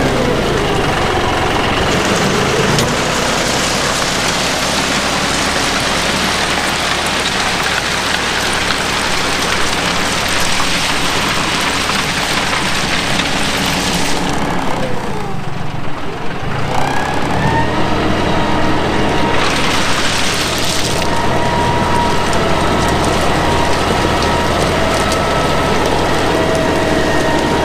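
John Deere 5055E diesel tractor engine running under load while pulling a grading scraper over gravel, with a steady noisy rush. About halfway through the engine slows and its pitch falls, then it revs back up.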